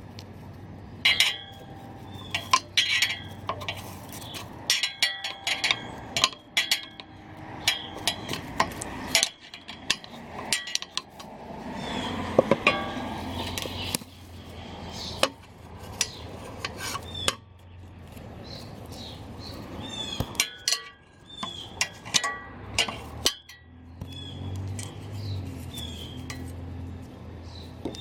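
Irregular metallic clinks and taps of hand tools against the steel parts of a push reel mower being worked on, with a short stretch of scraping about halfway. Birds chirp faintly in between.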